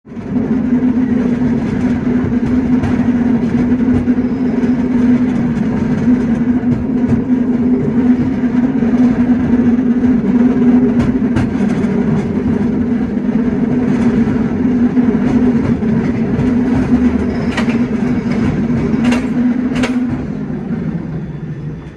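San Francisco cable car running along its California Street track: a steady, loud mechanical hum over a rumbling clatter. A few sharp clicks come near the end, and then the hum fades away.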